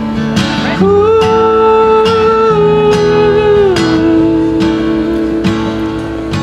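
Background music: a song with guitar and a steady beat, carrying one long held melody note that steps down in pitch about halfway through.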